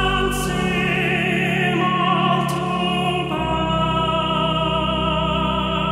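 Slow background music with long, held, wavering notes over a sustained bass; the harmony shifts about half a second in and again a little past three seconds.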